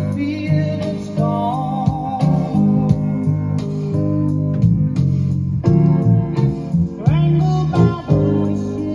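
Guitar music played through loudspeakers driven by an Adcom GFA-6000 five-channel power amplifier, with sliding guitar notes and a strong bass line.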